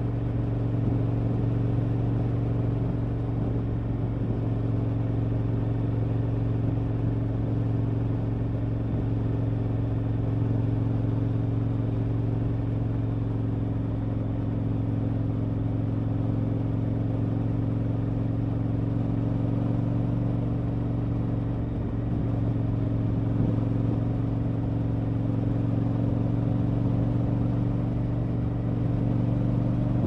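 KTM 1190 Adventure's V-twin engine running through an Akrapovic exhaust on the move, held at a nearly constant engine speed, with a slight dip in level a little past two-thirds of the way through.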